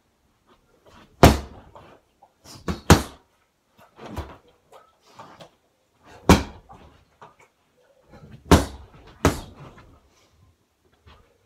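Punches and kicks landing on a free-standing punch bag: about seven hard thuds at uneven intervals, with quieter sounds in between.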